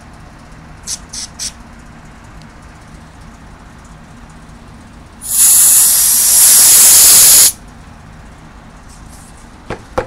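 Aerosol brake cleaner sprayed through a small carburetor jet: one loud hiss lasting about two seconds, flushing out a jet gummed up by stale gas. Three quick, short hisses come about a second in, and two light knocks near the end.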